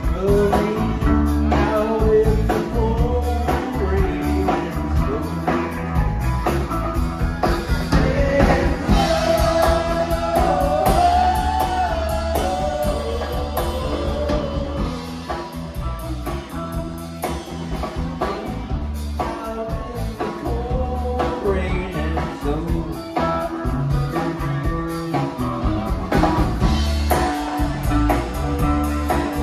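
Live blues-rock band playing: electric guitar, bass guitar, keyboards and drum kit with a steady beat, and an amplified harmonica wailing a lead line over them, most prominent about a third of the way in.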